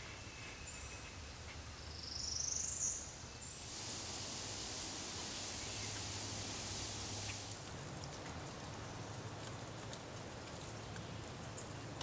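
Spring woodland ambience: a bird's short rising call about two seconds in, the loudest sound, followed by a high steady hiss for about four seconds, with faint scattered ticks near the end.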